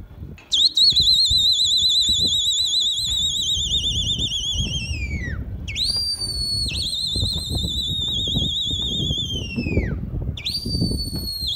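A pea whistle blown in three long trilling blasts, each sagging in pitch as it dies away. It is a pigeon flyer's whistle signalling his flock in the air.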